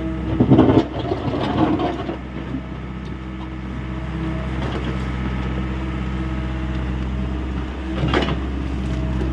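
Hyundai 85A SMART excavator's diesel engine running steadily. There is a noisy clatter in the first two seconds and a short sharp knock about eight seconds in.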